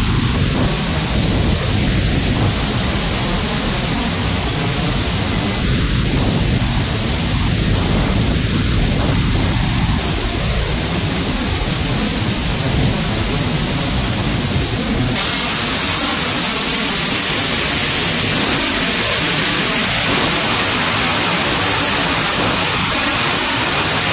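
Boeing C-17 Globemaster III's turbofan engines and slipstream heard from inside the cargo bay with the paratroop door open: a loud, steady roar and rushing hiss with a thin high whine. About fifteen seconds in it switches abruptly to a brighter, louder hiss with a higher whine.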